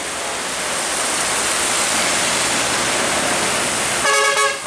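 Steady rain noise, with water hiss from wet road traffic. About four seconds in comes one short horn blast of about half a second, from a passing vehicle.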